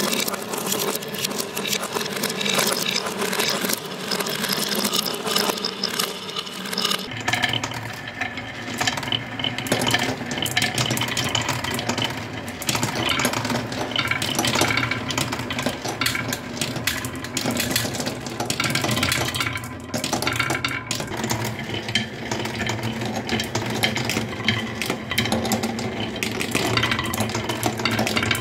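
Marbles rolling round a plywood spiral track: a continuous rolling rumble with dense clicking as they knock against the wooden rails and each other. It grows fuller about seven seconds in.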